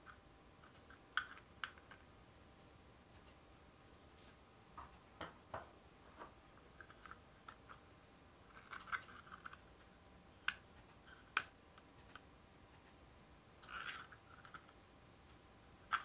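Faint handling noise of a small 3D-printed plastic box turned over in the hands: scattered sharp clicks and taps with light rubbing and a short rustle near the end.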